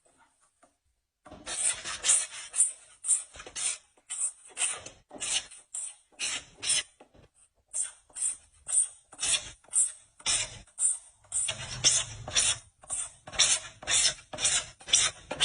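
Rapid back-and-forth rubbing or scraping strokes, about three a second, starting about a second in and keeping an uneven rhythm: hand abrasion work on a hard surface.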